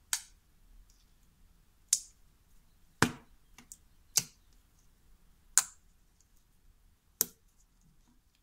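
Clear slime being handled and poked, giving six sharp pops about a second and a half apart, with a few faint ticks between them.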